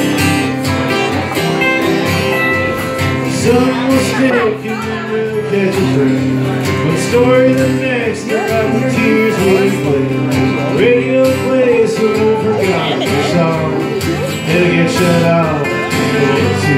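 Live country-style duo on two acoustic guitars, strummed and picked together, with a man's voice singing a melody over them.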